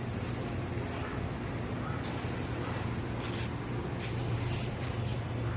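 Industrial reciprocating air compressor running steadily: an even, low machine hum with a few faint clicks.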